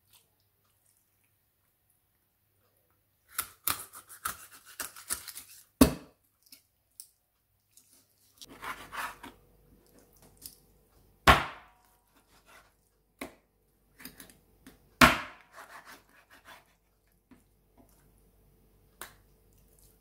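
Knife cutting raw chicken on a wooden cutting board: three loud single chops into the board, about 6, 11 and 15 seconds in, among runs of softer cutting taps and scrapes.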